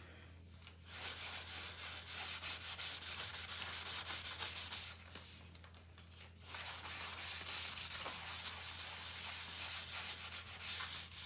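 Paper towel rubbing gel stain into a wooden sign in quick back-and-forth strokes, a dry scrubbing sound, with a short pause about halfway through. A steady low hum runs underneath.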